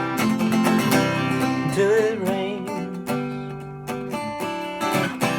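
Acoustic guitar strumming the closing bars of a country-folk song, with a wavering held note about two seconds in.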